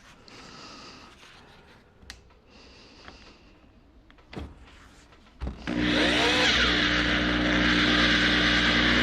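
A few faint clicks and knocks, then about five and a half seconds in, an electric drill starts and runs steadily, driving a Stripmaster wire stripper.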